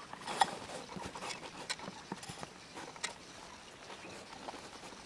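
Young ducks pecking feed from a plate and dabbling in shallow water: a scatter of irregular clicks and taps, the sharpest about half a second in.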